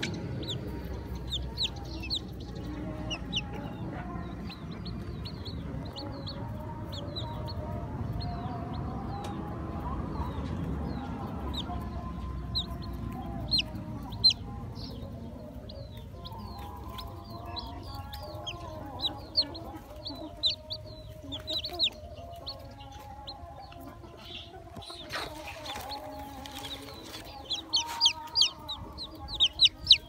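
Newly hatched chicks peeping in short high cheeps, getting busier and louder in the last few seconds, over a hen's lower clucking.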